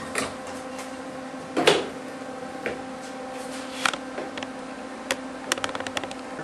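Light clicks and knocks of a small welded steel-rod figure and tools being handled and set down on a wooden workbench, the loudest knock about a second and a half in and a quick run of small clicks near the end as the figure is placed. A steady hum runs underneath.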